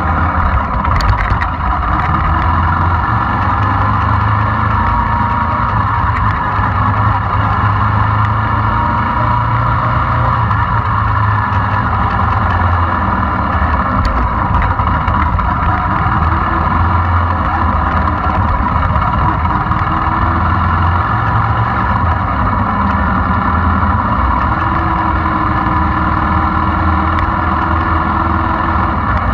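Small motorcycle engine running steadily at low speed.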